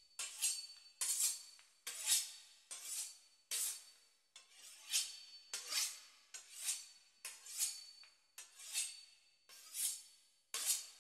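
Kitchen knife sawing back and forth through the crisp puff-pastry crust of a beef Wellington: short rasping crunches, about two strokes a second.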